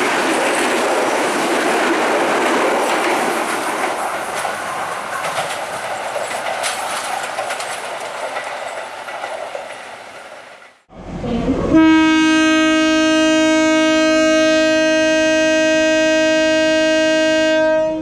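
Passenger carriages of a Sri Lanka Railways train roll past, wheels clicking over the rail joints, the rumble slowly fading. After a sudden break, a diesel train's horn sounds one long steady blast of about six seconds, the loudest sound here.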